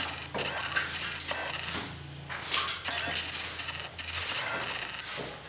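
Water being thrown by hand from a small bowl onto a wet tiled floor, a run of short splashing swishes every half second to a second.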